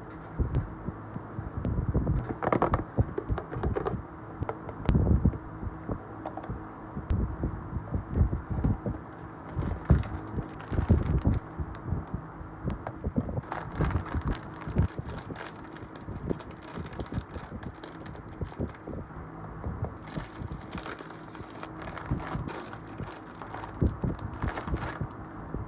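Irregular clicks, knocks and rustles of a box and toy being handled while unboxed, with a steady low hum underneath.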